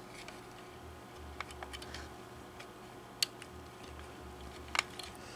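Faint scattered clicks and taps of a wire being worked through a plastic battery compartment's connector, with a sharper tick about three seconds in and another near the end.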